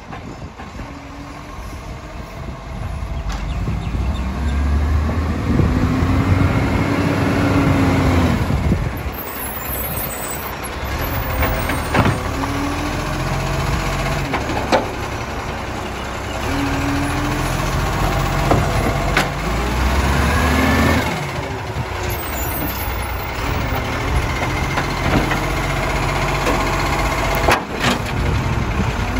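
Iveco side-loader garbage truck working its lifting arm: the engine revs up and drops back twice as it drives the hydraulics that lift and tip wheelie bins into the hopper. A few sharp knocks come as the bins bang against the arm and hopper.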